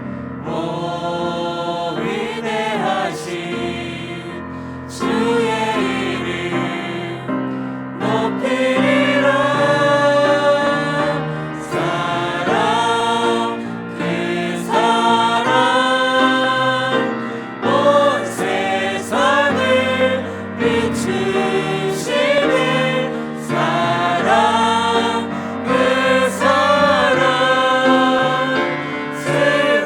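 A church choir singing a hymn in sustained phrases.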